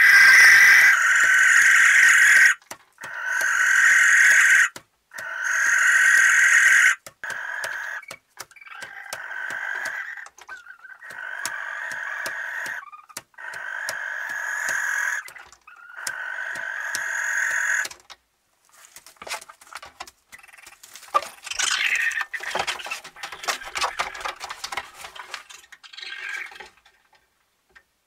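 Barn owls giving long rasping, hissing calls, each about two seconds, repeated with short gaps; the first few are loud and the rest quieter. In the last third the calls give way to scattered clicks and scuffling.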